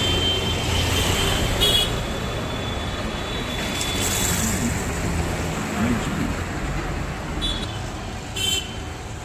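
Roadside traffic: a steady rumble of passing vehicles, with short vehicle horn toots about two seconds in and twice near the end.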